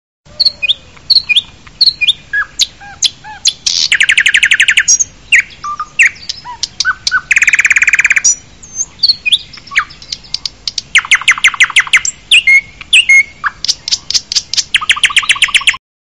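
A small brown warbler singing a fast, varied song of short whistles, slurred notes and clicks, broken four times by loud, rapid trills that each last about a second. The song stops just before the end.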